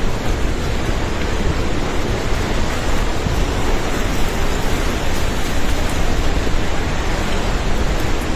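Flash-flood torrent of a swollen river rushing past: a loud, steady rushing noise with a deep rumble underneath and no let-up.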